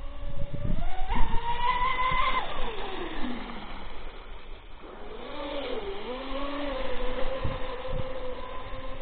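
Twin electric motors of a Minicat 820 EP RC catamaran whining under throttle. The pitch climbs over the first two seconds, falls away about two and a half seconds in, then rises again about five seconds in and holds steady.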